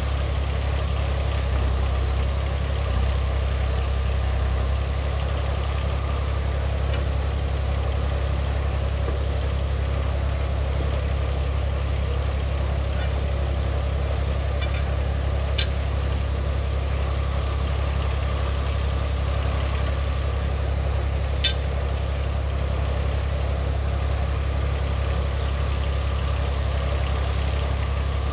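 Diesel engine idling steadily, with a few sharp metallic clinks of a steel pry bar on the excavator's track and undercarriage in the second half.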